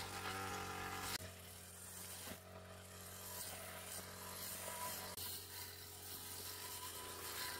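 Small motorbike engine running steadily at an even pitch, under a rushing hiss of wind and road noise.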